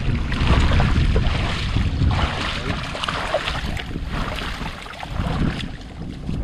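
Water splashing in repeated washes about once a second, with wind rumbling on the microphone.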